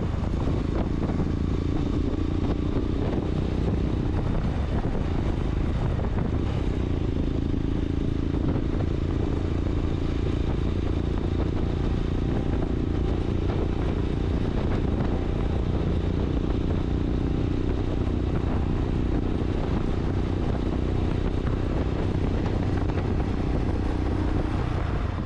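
Motorcycle running steadily at road speed, engine sound mixed with wind and road noise, picked up by a camera mounted on the rider.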